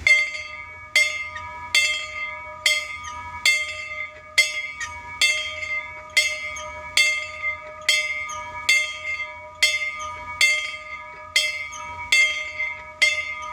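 A bell struck over and over at an even pace, about one stroke a second, each stroke ringing on into the next with the same few clear tones.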